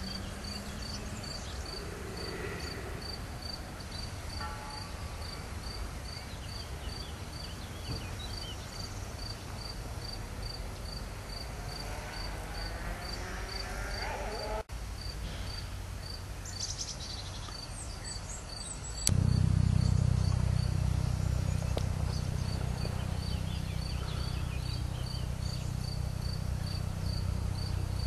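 A cricket chirping in a steady rhythm, about two chirps a second. About two-thirds of the way in, a low droning hum sets in and becomes the loudest sound.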